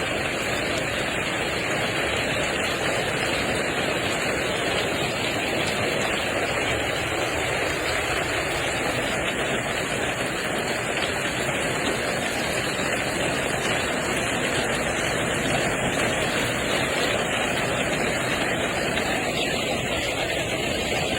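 Steady, dense rushing noise of water, like heavy rain or runoff, even in level with no distinct hits.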